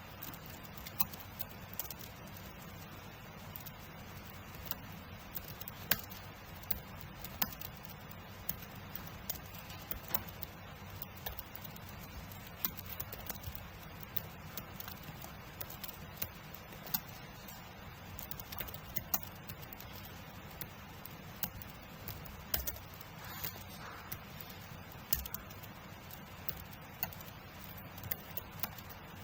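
Typing on a computer keyboard: a running patter of key clicks at uneven spacing, several a second, over a steady background hiss.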